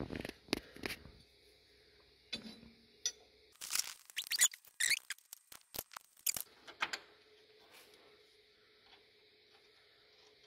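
Small metal clicks and clinks as a lawn tractor's steering sector gear plate and its bolt are handled and fitted onto the frame by hand, with a burst of rapid clinks and short squeaks near the middle.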